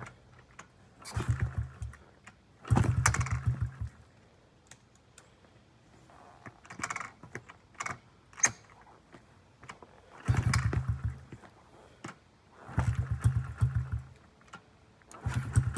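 Small single-cylinder engine of a 2009 Honda CRF50F pit bike being kicked over five times. Each kick spins it with a quick run of low chuffs for about a second, and it dies away without catching: the bike, unstarted for two years, is failing to start. A few light clicks fall between the second and third kicks.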